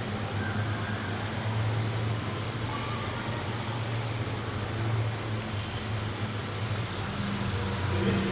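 A steady low machine hum over a faint even background noise.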